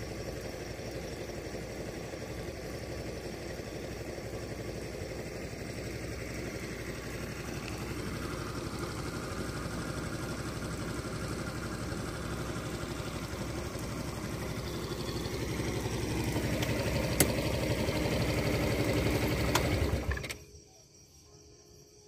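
Motor scooter engine idling steadily, growing louder over the last few seconds before it cuts off abruptly about twenty seconds in.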